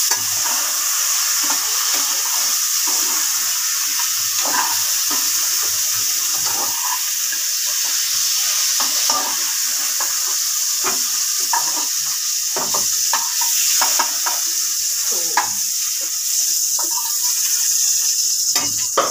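Food sizzling in hot oil in a metal pan, a steady hiss, while a metal spatula stirs and scrapes against the pan with irregular scrapes and knocks.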